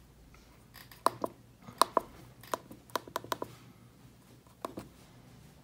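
Buttons on a RigExpert AA-30 antenna analyzer's keypad being pressed as a frequency is keyed in: about a dozen short, sharp clicks, mostly in quick pairs.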